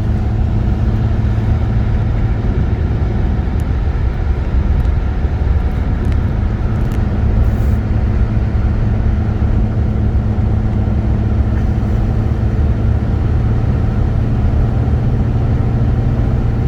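Vehicle engine and road noise heard from inside the cab at about 55 mph: a steady, even drone with a constant engine hum. With the throttle floored, the engine is slow to gain speed, which the owner puts down to a misfire.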